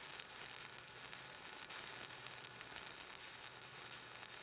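Stick welding arc making a steady crackling sizzle: a 7018 electrode burning in an overhead fill pass, at about 118 amps.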